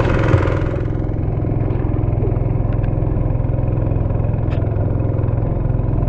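Small fishing boat's engine running steadily at cruising speed, with the boat underway.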